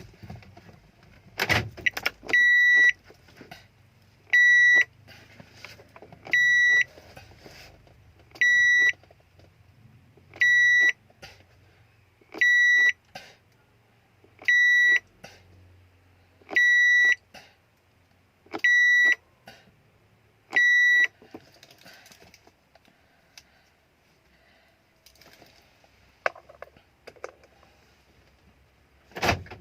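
A Mitsubishi car alarm sounding its ignition beeps: ten short, even, high-pitched beeps about two seconds apart. A cluster of sharp clicks comes just before the first beep, and another loud click right at the end.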